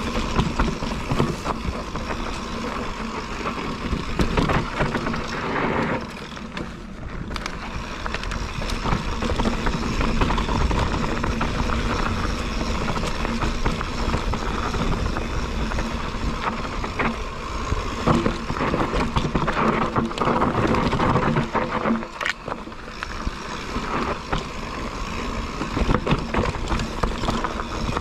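Mountain bike riding down a dry dirt singletrack: knobby tyres rolling over dirt and leaf litter, with the bike clattering and knocking over bumps and wind rumbling on the microphone.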